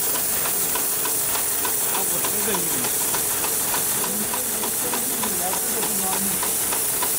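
Hightex computerised pattern sewing machine stitching polyester webbing strap: a steady hiss with faint, quick ticks, over faint background voices.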